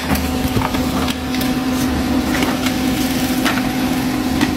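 HP LaserJet Pro M1212nf laser printer running while it prints its configuration report: a steady motor hum with scattered sharp clicks.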